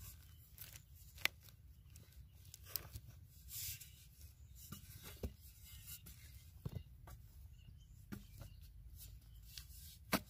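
A metal digging blade chopping and prying into dry, cracked clay, with irregular sharp knocks and a brief scraping crumble of clods. It is faint, and the sharpest knock comes near the end.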